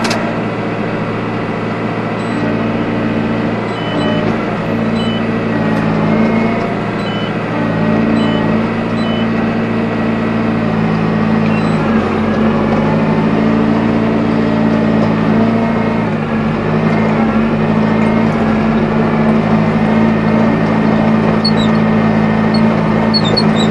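Tractor engine running steadily under load while driving a Kuhn GA 13131 four-rotor hay rake. From about four to nine seconds in, a row of short high beeps sounds about once a second.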